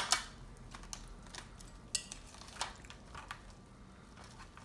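Knife and fork tapping and scraping on a plate while cutting into a fried lobster tail: a few scattered sharp clicks, the loudest right at the start.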